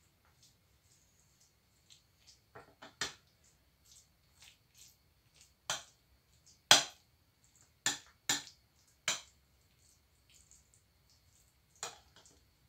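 Metal spoon tapping and scraping against a glass salad dish while smoothing chopped egg and mayonnaise: about seven sharp clicks at irregular intervals, the loudest about seven seconds in, with soft scrapes between.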